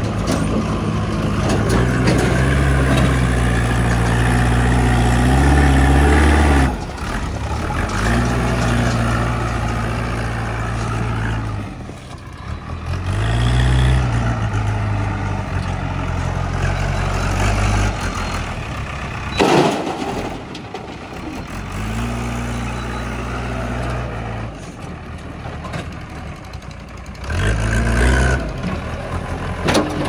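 Diesel engines of a JCB 3DX backhoe loader and farm tractors running and revving, rising and falling in pitch, with several abrupt breaks between stretches. There is one short, sharp loud burst about two-thirds through.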